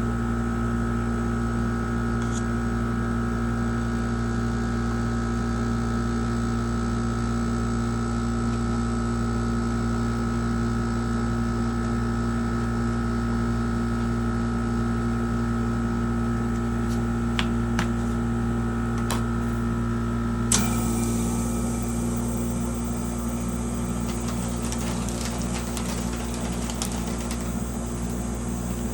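Steady mechanical hum of a small motor or appliance, with a few light clicks and one sharp click about twenty seconds in, after which its high whine stops.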